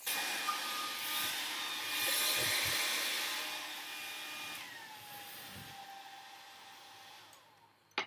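Conair 1875-watt mid-size styler blow dryer with a brush head blowing hot air with a steady motor whine; about halfway through its pitch drops and the airflow fades away as the motor winds down.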